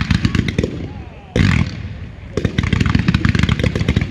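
Fireworks finale: ground-fired batteries of shots and comets going off in rapid succession, a dense string of sharp bangs. About a second and a half in there is one loud burst, then a short lull, and the rapid firing picks up again.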